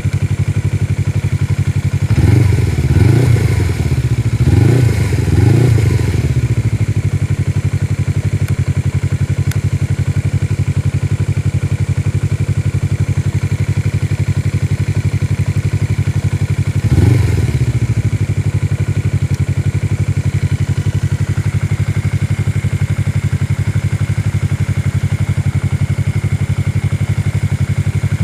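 2015 Suzuki Inazuma 250's parallel-twin engine idling steadily through twin Akrapovic-style aftermarket exhausts. There are three quick throttle blips a couple of seconds in, and one more blip midway.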